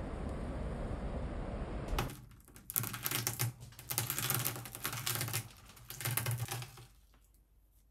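Boiled egg rolled under a palm on a marble countertop, its shell cracking in dense runs of fine crackles for about five seconds, starting about two seconds in. Before that, steady outdoor background noise, which cuts off abruptly.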